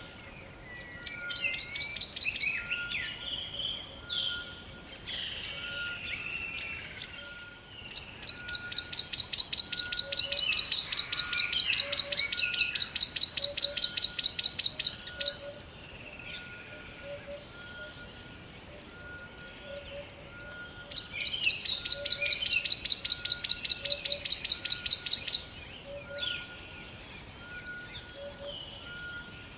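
Forest birdsong: assorted chirps and whistles, with two long, loud rapid trills about eight seconds and again about twenty-one seconds in. A faint short note repeats evenly underneath.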